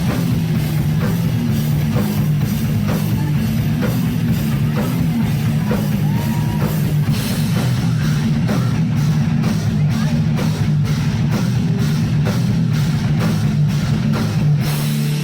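Heavy metal band playing live: loud distorted guitars and fast, dense drumming, with the music cutting off just after the end.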